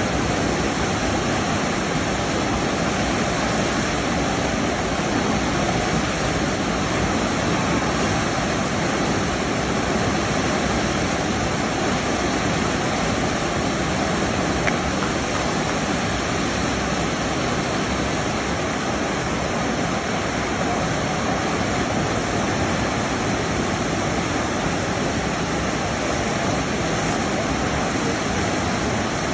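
Waterfall rushing steadily, a dense even roar of falling water, with a single brief click about halfway through.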